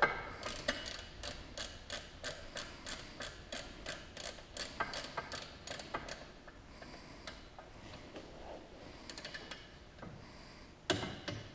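Socket ratchet clicking steadily, about four clicks a second, as the bolt on the Can-Am Maverick X3's secondary clutch is run down. The clicking stops about six seconds in, followed by faint handling noises and a sharp knock near the end.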